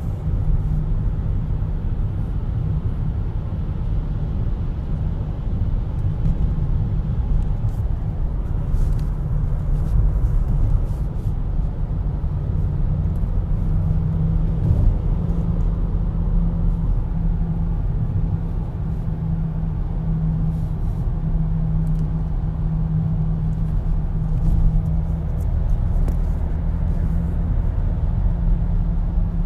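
2014 BMW X3 driving at about 50–60 mph with a steady low hum under the road noise, the drone of a bad front wheel bearing/hub. The hum stands out more clearly from about halfway through.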